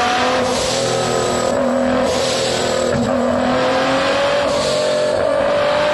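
2017 Nissan GT-R's twin-turbo 3.8-litre V6 running hard under load on a chassis dyno, exhausting through a valved catback muffler, quad tips and catless downpipe. Its pitch climbs slowly and steadily.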